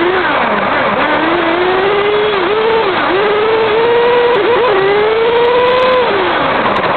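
Kyosho radio-controlled model car's motor, heard from a camera riding on the car, revving up and dipping several times as the throttle is worked. There is a steady rush of road noise underneath. The revs hold highest about four to six seconds in, then fall off near the end.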